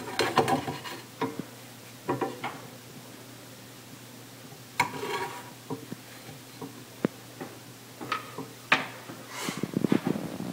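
Plastic spatula scraping and knocking in a metal frying pan on a gas stove, with scattered clatter of cookware and a cluster of quick clicks and knocks near the end. A faint steady hum runs underneath.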